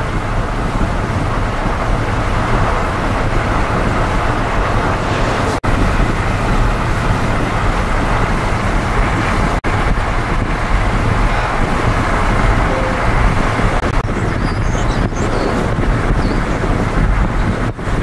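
Steady road and wind noise of a moving car, heard from inside it, with a deep rumble underneath. The sound drops out for an instant twice.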